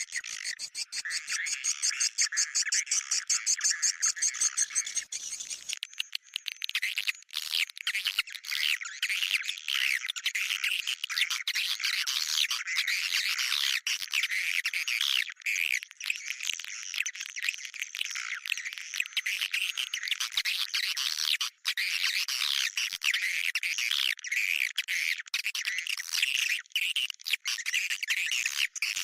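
Swiftlet calling sound: continuous high-pitched twittering chirps of edible-nest swiftlets, the lure call used to draw swiftlets into a nesting house. For about the first six seconds the chirps come in a fast, even repeating pattern, then they turn into a denser, irregular twitter.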